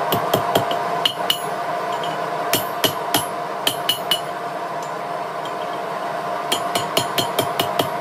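Hand hammer striking a red-hot steel bar on the horn of an anvil, bending it into a curve: clusters of quick ringing blows, a pause of about two seconds in the middle, then a fast run of blows near the end, over a steady hum.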